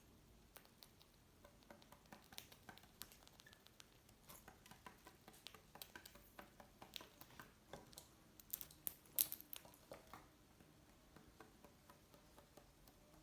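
Cockatiels eating: a run of small, irregular crunches and clicks of seed being cracked and nibbled, busiest and loudest about two-thirds of the way through.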